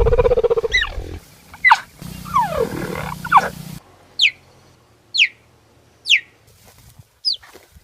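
Cat-like animal sound effect: a low, pulsing growl, then a few falling yowls, then four short, high chirps, each dropping in pitch, about a second apart. The abrupt cuts between segments mark a spliced sound effect rather than one continuous animal recording.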